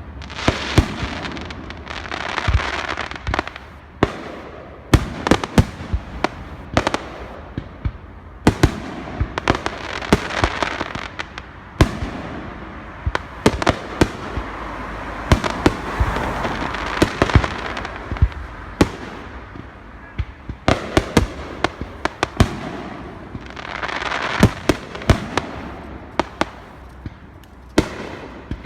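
Fireworks display: a steady run of sharp bangs, some in quick clusters, over a hiss that swells and fades every few seconds.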